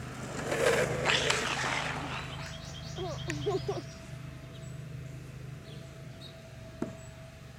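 Longboard wheels rolling and scraping over asphalt: a rough rush with a couple of sharp clicks for about a second and a half near the start. About three seconds in comes a short wavering cry.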